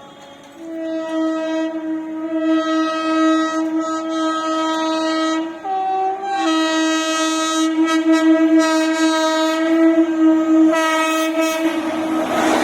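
WAP-7 electric locomotive's air horn sounding a long, loud blast, switching briefly to a higher note about six seconds in, then another short sounding near the end. In the last second the rushing noise of the approaching train rises.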